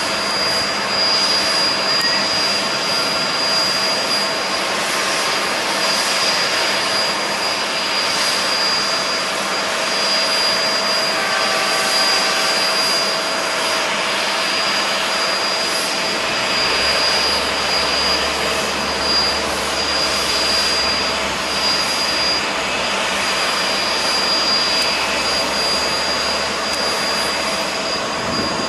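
Jet airliners running: a steady jet whine with a constant high tone over a wide hiss. A low hum joins about halfway through.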